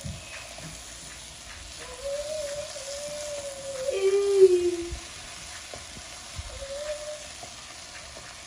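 Basmati rice, vegetables and cooked chicken sizzling lightly in an oiled pan as they are stirred and turned with a silicone spatula, the rice being fried before water goes in. A wavering pitched tone comes and goes behind it, dropping lower and loudest about four seconds in.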